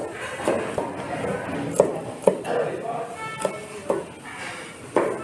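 Chef's knife chopping an onion finely on a plastic cutting board: a series of sharp, irregularly spaced knocks as the blade strikes the board.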